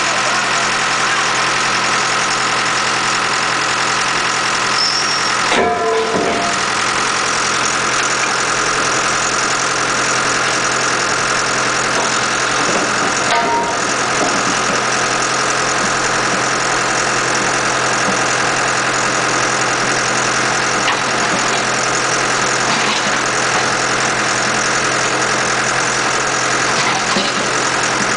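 Mobile scrap-metal baler's engine running steadily under load, with two brief sharper noises partway through.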